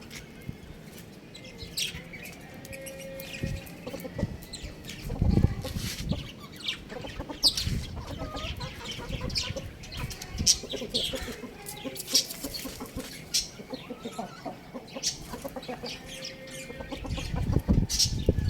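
Chickens clucking, with many short high calls scattered throughout and a few low thuds about five seconds in and near the end.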